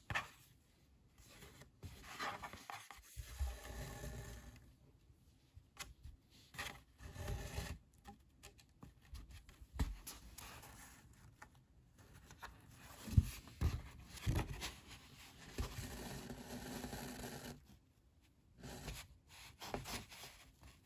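Sheets of heavy cotton printmaking paper rustling and scraping as they are handled, with linen thread pulled through the sewn signatures. Soft rustles come and go, with an occasional sharper tap.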